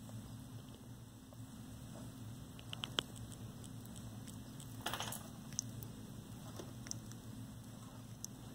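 Faint steady low hum with scattered small clicks, a little cluster of them about three seconds in, and a brief crackle about five seconds in.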